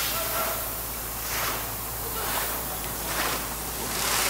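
Muddy water and air blasting up out of a borewell casing as compressed air is forced down the bore to flush it, gushing and splashing in surges about once a second.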